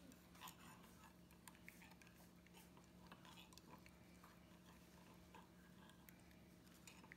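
Faint, scattered clicks and scrapes of a metal knife against a glass mason jar as the blade is run around the inside to loosen a baked flan, over a low steady hum.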